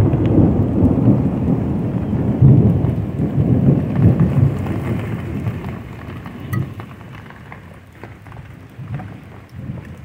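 Thunder rumbling over steady rain, loudest in the first half and dying away over the last few seconds.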